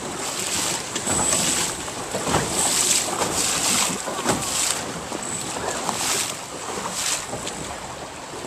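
Wind on the microphone over choppy water, with water splashing and lapping in irregular surges.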